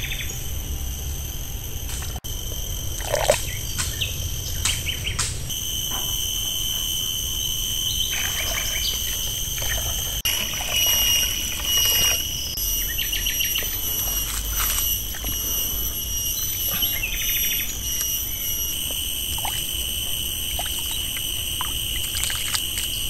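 Insects buzzing in a steady high drone, with birds chirping now and then.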